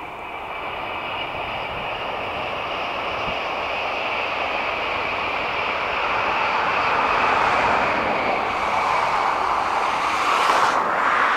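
N700A Shinkansen electric train passing at high speed: a rushing noise that swells steadily over several seconds. It is loudest near the end, with a brief sharper hiss about ten and a half seconds in, and then starts to fade.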